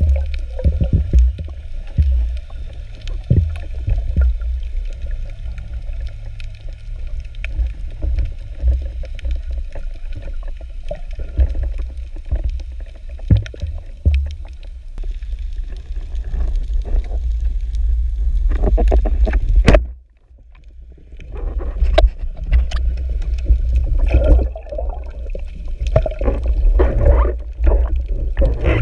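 Underwater sound heard through a camera in its housing: a loud low rumble of moving water with scattered clicks and crackles. It drops out briefly about two-thirds of the way through.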